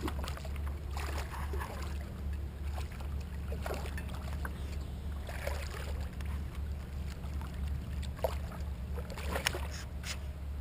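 Scattered splashes and knocks on and around a kayak as a hooked fish is worked alongside and landed, over a steady low hum.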